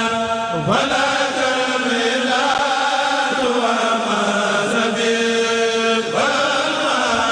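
A kourel of men chanting a khassida in unison, holding long notes. The pitch dips and rises between phrases about a second in and again near the end.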